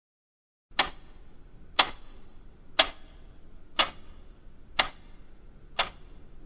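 A clock ticking steadily, one sharp tick a second, six ticks in all, over a faint low hum. The ticking comes in out of dead silence just under a second in.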